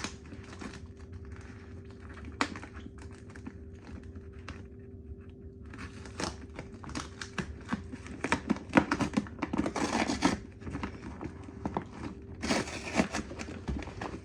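A cardboard shipping package being torn open by hand: cardboard and tape tearing and packing material crinkling, in irregular rustles that grow busier in the second half, with a sharp click a couple of seconds in.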